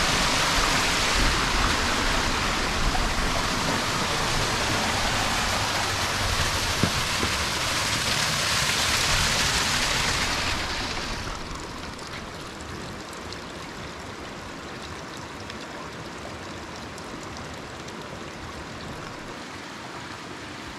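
Rushing water of a canyon stream, a steady hiss that drops to a quieter, even rush about eleven seconds in.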